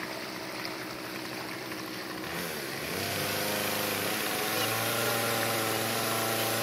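An engine running with a steady pitch, coming in about two and a half seconds in over a faint steady hum.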